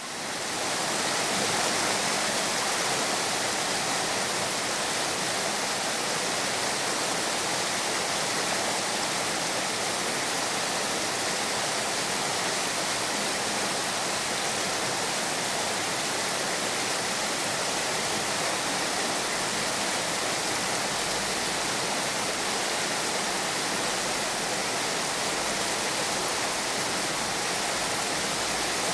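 Heavy rain falling steadily, a dense, even hiss that swells in over the first second and then holds level, with no thunder.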